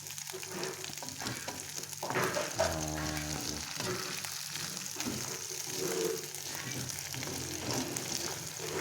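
Small grago shrimp frying in hot oil in a pan: a steady sizzle with scraping as they are stirred to keep them from burning. A brief pitched sound about two seconds in.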